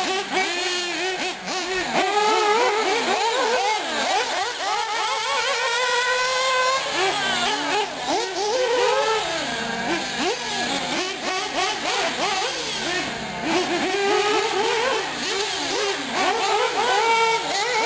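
Small nitro engines of two 1/8-scale R/C buggies, a Hot Bodies D8 and an Associated RC8, running at high pitch and revving up and down over each other as the buggies accelerate and brake around the track.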